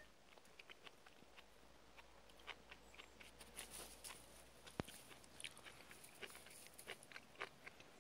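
Faint, scattered crackling and clicking of dry grass, twigs and leaves being stepped through, with one sharper click a little before the middle.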